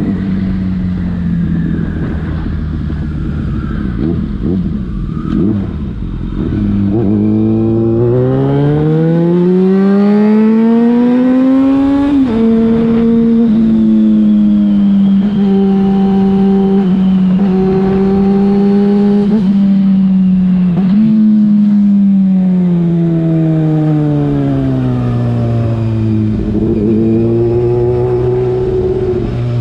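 Yamaha FZ6 inline-four with an aftermarket Leovince exhaust, riding and revving. For the first seven seconds its note sits low under a rushing noise. It then climbs steadily for about five seconds and drops at a gear change, holds fairly steady with small steps, and falls away as the bike slows in the last stretch, with a short rev near the end.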